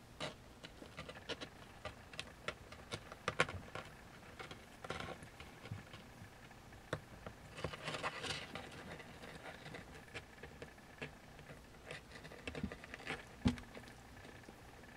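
Kitten claws scratching and scrabbling at a plywood wall: irregular small clicks and scrapes, with a denser stretch of scratching about eight seconds in. There is a thump near the end.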